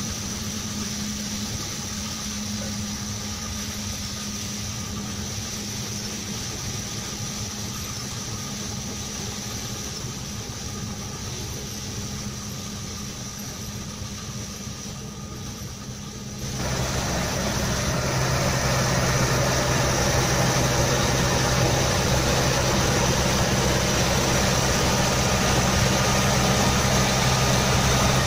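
Tractor engine running steadily under load while pulling a stone burier through the soil, with a constant low hum. About two-thirds of the way through, the sound steps up abruptly to a louder, closer, deeper engine drone.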